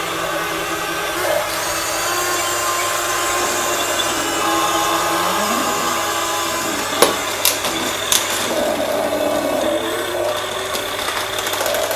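Small geared electric motors of two Huina RC toy excavators whining as they drive their tracks and swing their arms, one motor rising in pitch about five seconds in. A few sharp knocks about seven and eight seconds in as the plastic arms and buckets clash.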